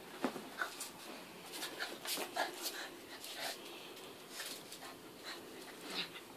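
Small dog making a string of short whining noises while play-wrestling with a cat, mixed with quick scuffling clicks.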